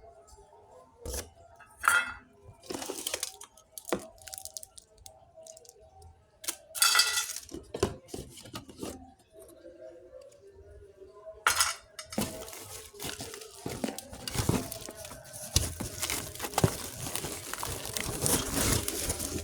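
Unboxing a toy mini stove set: small pieces clinking and knocking against each other, then plastic packaging crinkling and tearing almost without a break over the last several seconds.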